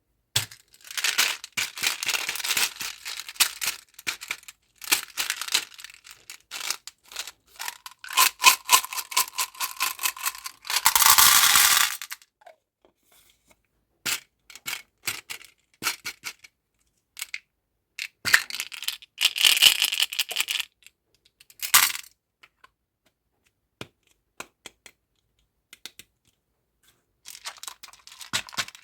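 Plastic candy packaging crinkling and tearing open, in bursts of crackling with sharp small clicks and taps between them, and one longer stretch of tearing about eleven seconds in.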